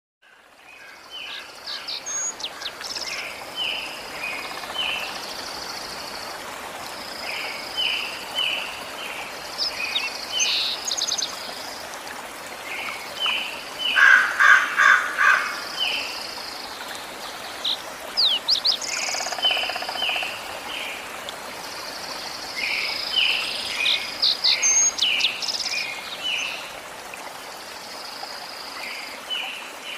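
Birds chirping and calling: clusters of short chirps and quick whistled notes that come back every few seconds, over a steady hiss. The busiest, loudest burst of chirps comes about halfway through.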